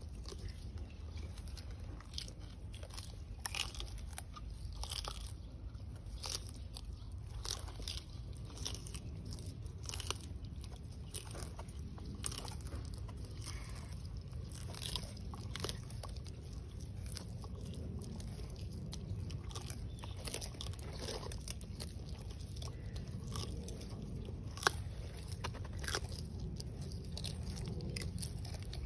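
Sulcata tortoises biting and crunching chopped grass, leaves and green stems: an irregular run of crisp crunches and snaps over a low steady hum.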